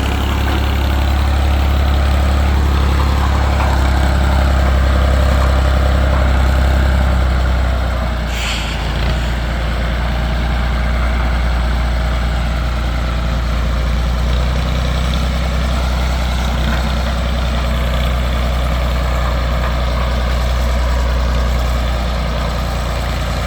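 Tractor engine running steadily, with a short hiss about eight seconds in.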